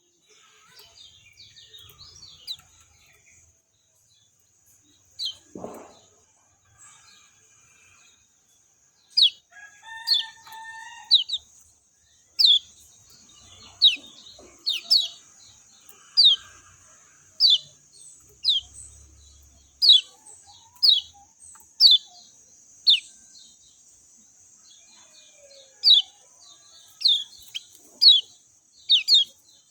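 Kecial kuning (yellow white-eye) calling: short, high, downward-slurred chirps, repeated about once a second from about nine seconds in, some in quick pairs, over a steady high hiss.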